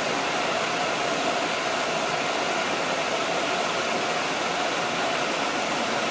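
Movie film projector running: a steady mechanical whir with a constant tone in it.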